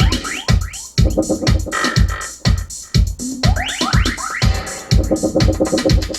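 Electronic music played back over a hi-fi loudspeaker system: a heavy drum-machine kick about twice a second under synthesizer parts with quick rising sweeps.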